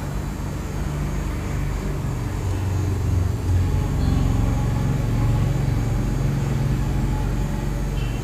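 A steady low rumble and hum, growing a little louder about three seconds in.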